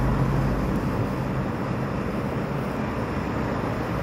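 High-powered torch running flat out, its flame jet making a steady rushing noise like a miniature jet engine.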